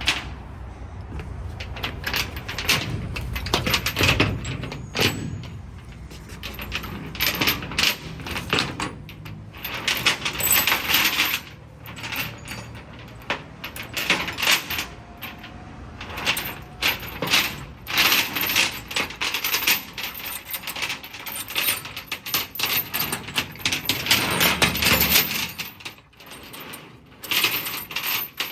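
Vermeer SC48TX stump grinder at work, its cutter wheel chewing into a stump with an irregular clatter of chips and debris over a low engine rumble. The rumble drops away near the end.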